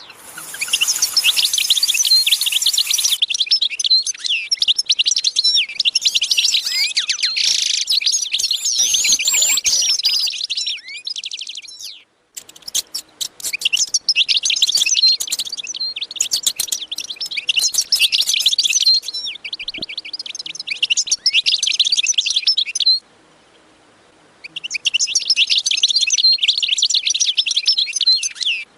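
A dense chorus of many small birds chirping and twittering rapidly, high-pitched. The chorus stops and restarts abruptly several times.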